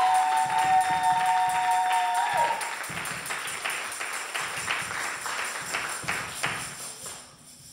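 Gospel music playing with two held keyboard-like notes that slide down and stop about two seconds in, over a steady percussive beat of tambourine or claps that fades out near the end.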